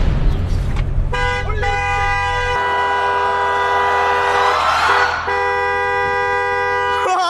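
Car horn honking in long held blasts, a steady two-note blare, broken off briefly about a second in, again near one and a half seconds, and once more near five seconds. A low engine rumble runs under it until about two and a half seconds in.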